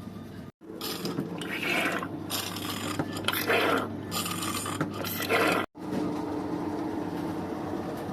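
Rasping, scraping strokes from work on an ice cream machine, several in a row over a steady low hum. The sound cuts out abruptly twice.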